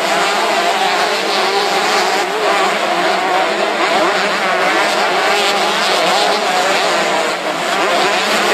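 Several motocross bikes running at once, their engines revving up and down with overlapping, wavering pitches.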